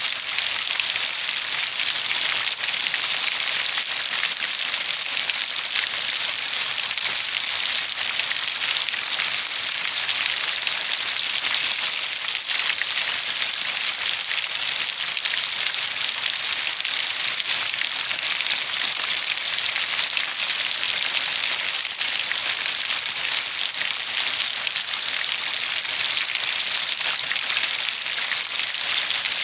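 Steady heavy rain: a dense, even hiss of drops with fine pattering, unchanging throughout.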